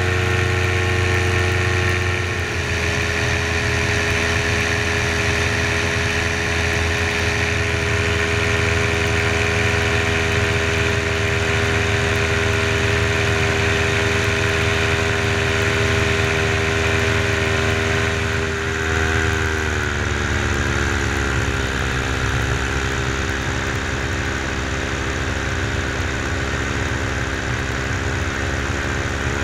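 Paramotor engine running steadily in flight. Its engine speed drops slightly about two seconds in and again, lower, about two-thirds of the way through.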